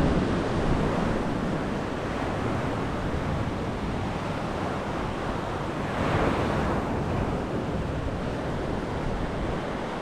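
Surf washing onto a sandy beach, a steady rush that swells as a wave breaks about six seconds in, with wind buffeting the microphone.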